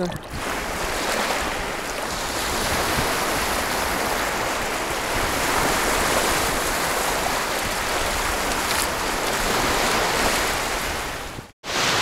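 Small waves of the Sea of Azov breaking and washing up onto a sandy beach: a steady rush of surf. It cuts out abruptly for a moment near the end.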